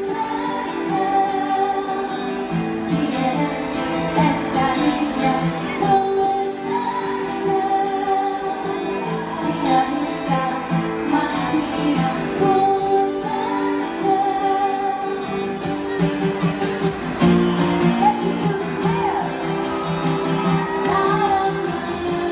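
Live pop song: a woman singing lead over guitar accompaniment, heard from the stands of a large arena.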